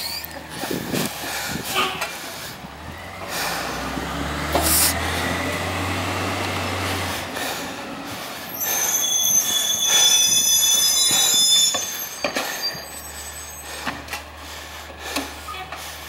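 Peterbilt 348 garbage truck pulling away with a low engine drone, then its brakes squealing loudly in several high tones for about three seconds as it comes to a stop. A few sharp knocks near the start.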